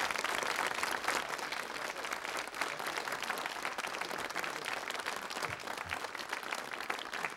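Studio audience applauding, the clapping easing off slightly toward the end.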